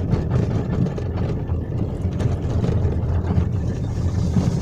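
Car driving slowly on a narrow lane, heard from inside the cabin: a steady low rumble of engine and road noise.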